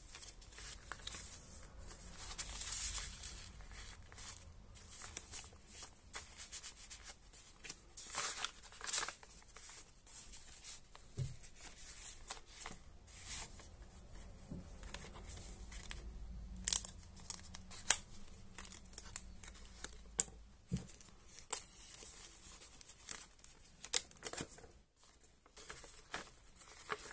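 Thick paper pages and tucked inserts of a handmade junk journal rustling and crinkling as they are turned and unfolded by hand, with a few sharp clicks and taps; the two loudest clicks come about two-thirds of the way through.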